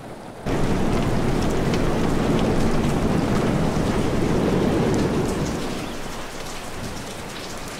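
Heavy rain pouring down. It starts suddenly about half a second in and eases off after about five seconds.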